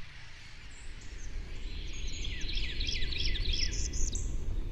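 Bird chirping: a quick run of short, high sweeping notes, about six or seven a second, starting about two seconds in, over a low steady outdoor rumble.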